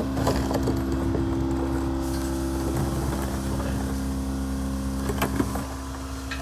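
An idling engine running with a steady, even hum, with scattered clicks and light knocks over it. The hum's lower tone drops away near the end.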